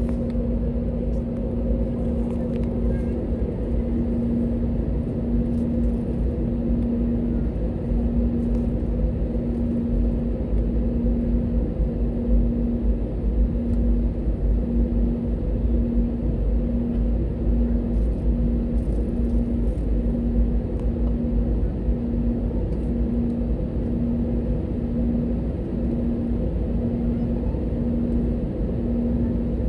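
Cabin noise of an Airbus A320-family jet airliner taxiing: a steady low rumble with an engine hum that wavers in level about once a second.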